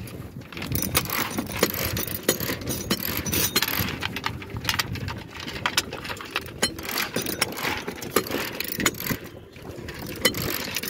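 Halyard winch on an aluminium mast being cranked to hoist the mainsail, its ratchet giving many irregular clicks, along with the clack of sail slides going into the mast track.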